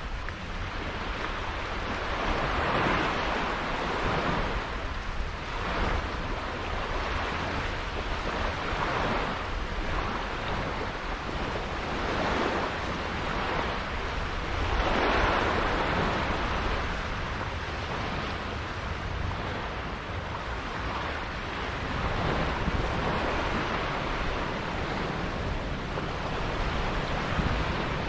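Sea water rushing and splashing, surging every few seconds, with wind rumbling on the microphone.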